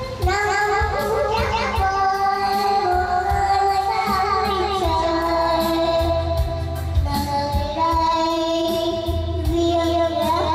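A young child singing a slow Vietnamese ballad into a karaoke microphone over a backing track, holding long notes that waver slightly.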